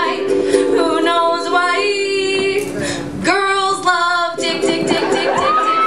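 Woman singing to her own ukulele, ending on a held note about four seconds in; the audience then breaks into cheering with a whistle.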